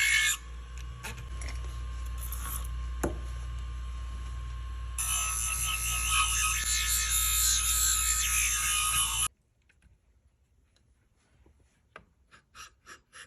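Motorised sharpening machine running with a steady hum while a barber shear blade grinds against it, a high scraping hiss that is softer for a few seconds and loud again from about five seconds in. The machine cuts off abruptly about nine seconds in, and near the end there is a run of short quick clicks.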